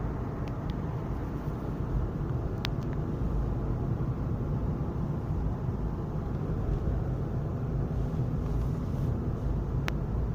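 Car driving along a road, heard from inside the cabin: a steady low engine and tyre noise, with two faint sharp ticks, about three seconds in and near the end.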